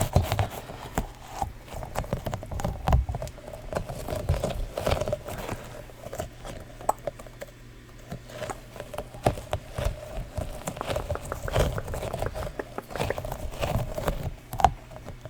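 Sticky fidget toys being handled close to the microphone: a run of soft, irregular taps and clicks as they are pressed together and pulled apart.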